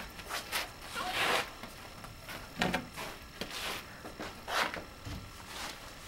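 Footsteps crunching on a thin, icy dusting of snow: a few irregular short scrapes, one longer one about a second in.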